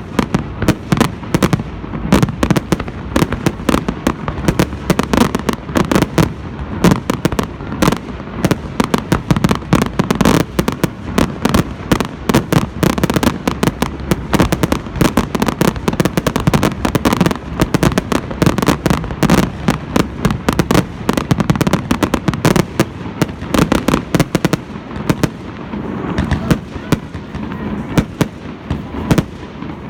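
Fireworks and firecrackers going off without pause: a dense, irregular run of many loud bangs and crackling pops, slightly thinner near the end.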